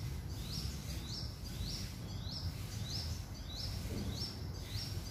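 A bird repeating one short, high, rising chirp about every half second, over a steady low background rumble.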